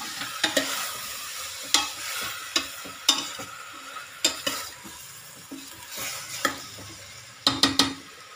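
Frying sizzle in a stainless steel pressure cooker as mushrooms, onion and tomato are stirred, with a utensil scraping and clicking against the metal pot every second or so. A quick run of clicks comes near the end.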